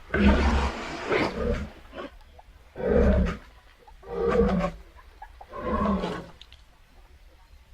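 Hippopotamus calling: a series of about five deep, pitched honking grunts, each under a second long and coming about every second and a half, then a pause near the end.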